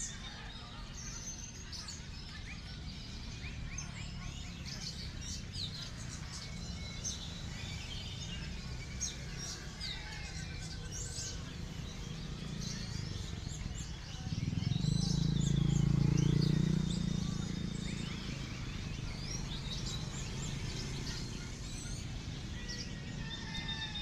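Many contest songbirds chirping and whistling over one another in a dense chorus. A low rumble swells up for a few seconds about halfway through, then fades.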